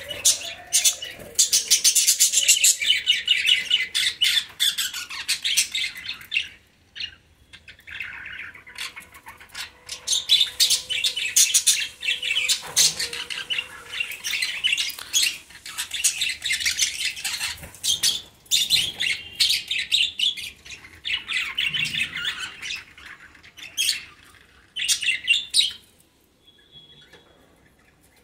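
Budgerigars squawking in distress as they are grabbed by hand in a small wire cage: harsh, rapid screeching calls in long runs, with a short lull about a quarter of the way in. The calls die away a couple of seconds before the end.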